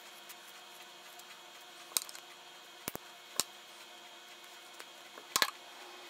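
Scissors snipping through a plush toy's fabric and seams, a handful of short sharp snips spaced irregularly, with a quick cluster near the end.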